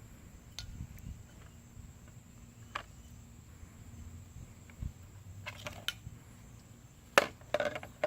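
Scattered light clicks and knocks of toys being handled, with a louder burst of clattering knocks near the end.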